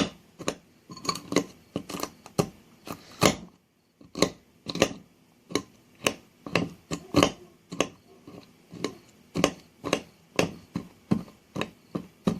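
Utensil and food handling in a bowl: a rapid, irregular run of sharp clicks and knocks, about two or three a second.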